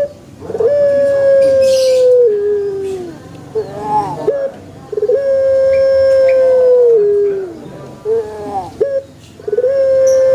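Puter pelung dove cooing: three long, drawn-out coos, each held steady for about two seconds and falling in pitch at the end, with shorter coos in between.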